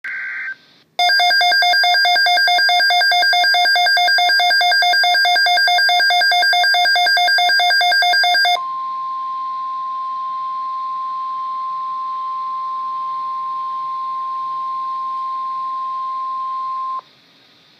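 NOAA Weather Radio receiver sounding a severe weather watch alert. After a brief beep at the start, a loud, rapidly pulsing electronic alarm runs for about seven seconds. It then gives way to the steady 1050 Hz warning alarm tone for about eight seconds, which cuts off suddenly.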